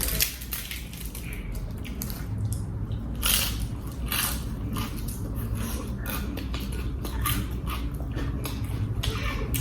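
Close-up chewing and crunching of crispy air-fried pork, in irregular bites with a louder crunch about three seconds in.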